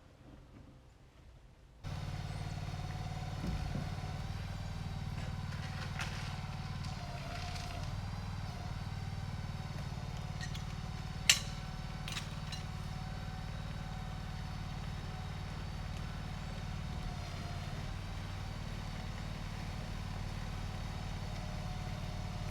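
A machine's engine running steadily, cutting in abruptly about two seconds in after near quiet. A single sharp click about eleven seconds in.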